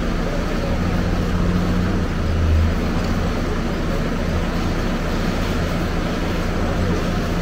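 Heavy diesel machinery running with a steady low engine drone that swells briefly about two and a half seconds in.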